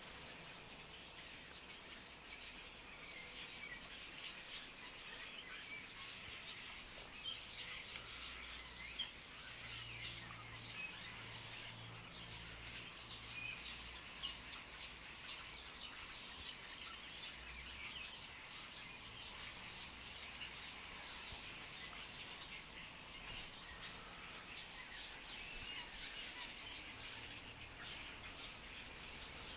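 A large flock of common starlings calling together, a dense, continuous twittering chatter of many short high chirps.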